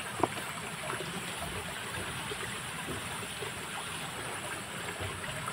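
Small stream flowing steadily, with one sharp tap just after the start.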